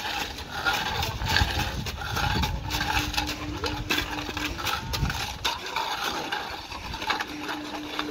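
Steel shovel scraping and slapping through wet concrete in short repeated strokes, over a low engine rumble from site machinery that thins out about halfway through. A steady hum comes in twice, for about two seconds each time.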